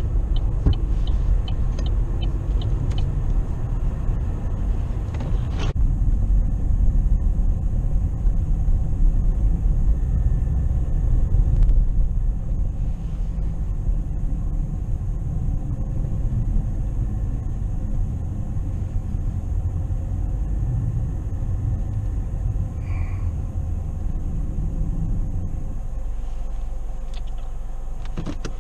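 Steady low rumble of a car's engine and tyres heard from inside the cabin as it drives slowly through snow. A run of light ticks sounds in the first three seconds and a single click near six seconds, and the rumble eases near the end.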